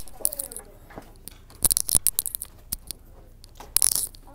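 Phone handling noise: fabric rustling and scraping against the microphone in crackly bursts, about a second and a half in and again near the end, with scattered small clicks.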